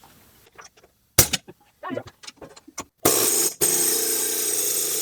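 Metal clinks and knocks of tools at the backhoe's cylinder pin, then about three seconds in a pneumatic air hammer runs in a loud, steady burst, with a brief break, before cutting off near the end.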